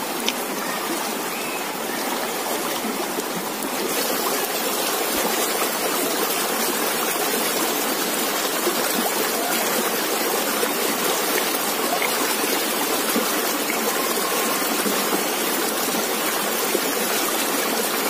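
River water flowing in a steady rush, a little louder after about four seconds.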